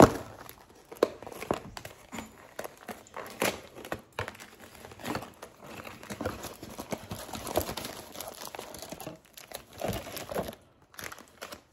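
Packaging ripped open and crumpled by hand, an irregular run of crackling and crunching, with a clear plastic bag crinkling near the end.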